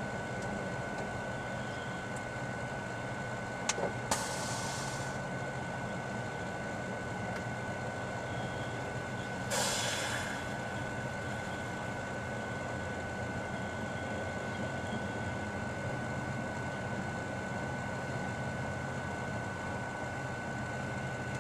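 Microwave oven running with a steady hum and a constant high tone. A couple of clicks and a short hissy whoosh come about four seconds in, and another whoosh comes at about ten seconds.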